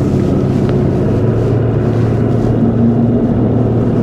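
Bass boat outboard motor running at idle, a steady low engine drone.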